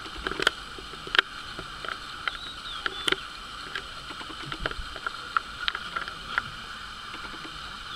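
Bush ambience: a steady high-pitched drone of insects, with many short sharp clicks and brief bird chirps scattered through it.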